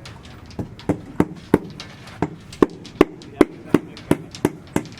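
Hand hammer striking repeatedly in a steady rhythm, about three blows a second, starting about half a second in.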